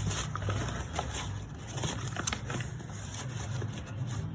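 Flour being scooped with a measuring cup and poured into a bowl: soft rustling with many small scrapes and clicks, over a steady low hum.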